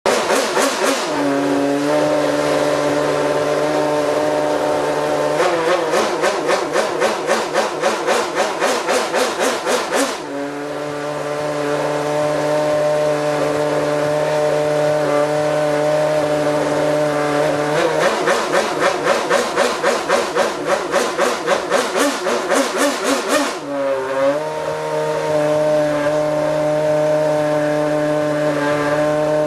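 Red Bull RB8 Formula 1 car's Renault 2.4-litre V8 idling, then revved in two runs of rapid throttle blips lasting about five seconds each, settling back to a steady idle between and after them.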